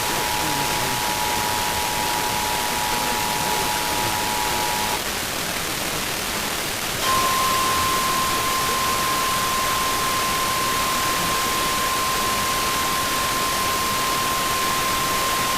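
EAS two-tone attention signal sounding steadily over heavy radio hiss, stopping about five seconds in; after about two seconds of hiss alone, a single steady, slightly higher tone starts: the NOAA Weather Radio warning alarm tone, heralding a relayed flash flood warning.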